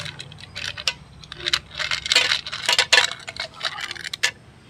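Pieces of ice dropping into a stainless steel mixer-grinder jar and clinking against its metal side and against the plastic container they are tipped from: a quick, irregular run of sharp clinks and knocks, thickest in the middle.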